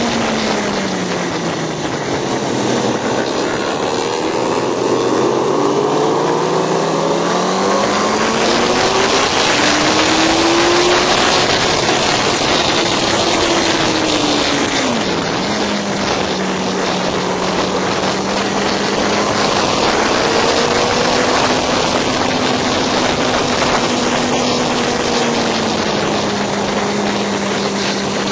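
A motorcycle engine at racing speed, heard from the bike itself, under a heavy rush of wind. The engine note falls over the first couple of seconds, climbs for several seconds, dips sharply once about halfway, then holds fairly steady for the rest.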